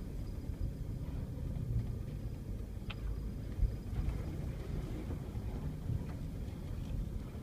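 Off-road vehicle rumbling along a rough dirt trail, engine and suspension noise heard from inside the cab. A sharp click about three seconds in, and a brief thump just after.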